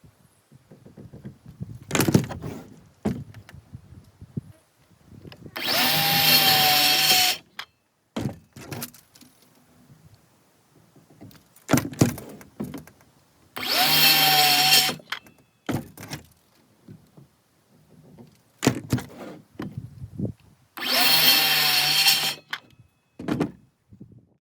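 A power saw cutting wood three times, each cut about two seconds long, its motor whine sagging as the blade works through the wood. Between the cuts come knocks and clatter of the wood being handled.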